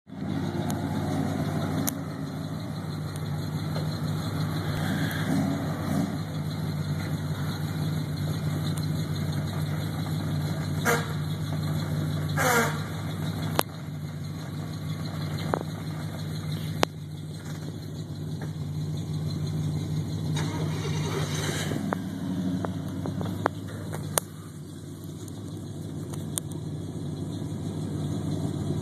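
A 4x4 truck's engine running steadily at low revs as the truck crawls over a rocky trail, with occasional sharp knocks. Two short squeals falling in pitch come near the middle.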